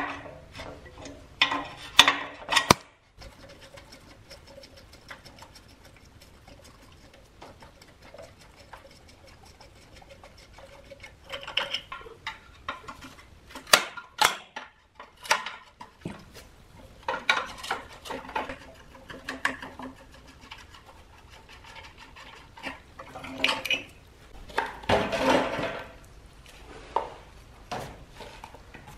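Steel wrench clinking and scraping on the rusty bolts and sheet-metal frame of an old vegetable slicer as its motor mount is unbolted. The sounds come in irregular bursts separated by quieter stretches, with the busiest clatter near the end.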